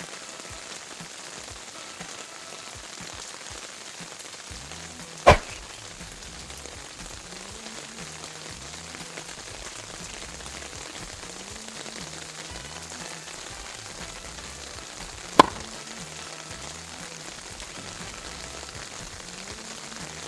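Heavy rain falling steadily on garden leaves, a dense even patter. Two sharp loud knocks, about ten seconds apart, stand out above it.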